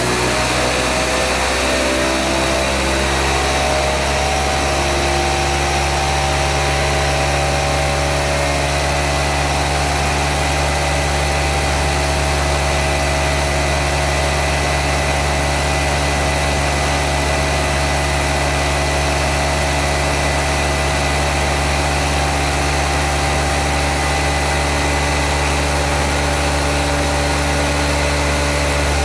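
AmpFlow A28-400-F48 electric motor running at 50 volts, spinning a 44-pound combat-robot weapon disc. It makes a loud, steady whine and hum with many pitches. The pitch rises over the first few seconds and then holds level as the disc reaches its top speed.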